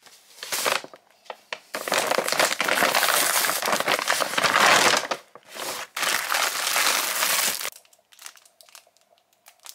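Clothing packaging crinkling and rustling as it is handled, in runs of several seconds, then only a few faint ticks near the end.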